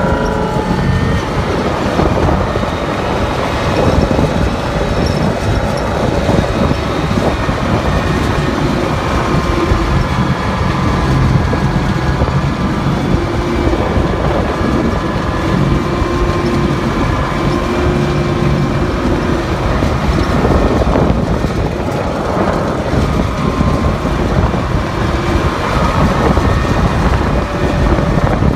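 Engine of a military vehicle running steadily as it drives across rough grass, heard from on board, with rumbling, rattling and wind on the microphone.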